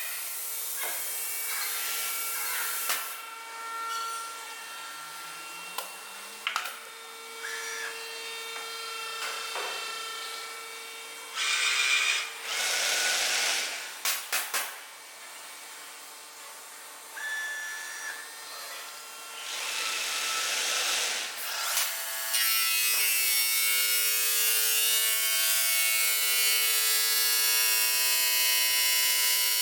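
CNC stone-working machine running: motor whines, clicks and two hissing bursts, then about two-thirds of the way in a motor comes up to a steady whine with a buzzing edge.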